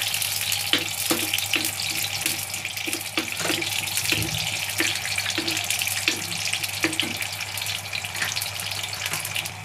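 Chironji (charoli) seeds frying in desi ghee in a kadhai: a steady sizzle with fine crackling, while a steel ladle stirs and scrapes the pan about twice a second.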